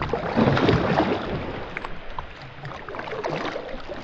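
Water splashing and sloshing around a fishing kayak, in irregular surges with a few small knocks.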